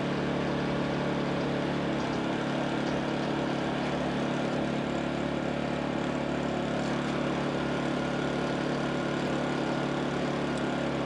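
Honda portable generator's small engine running at a steady speed.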